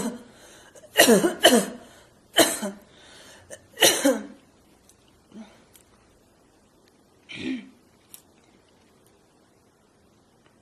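A person forcing harsh, barking coughs: four loud coughs in the first four seconds, the first two close together. After that it is mostly quiet, with one short softer sound about seven and a half seconds in.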